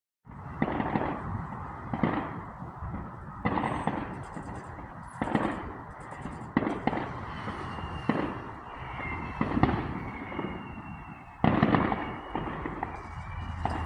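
Fireworks going off repeatedly, a sharp bang every second or two over a constant rumble of further explosions, with crackling and thin whistling tones in between.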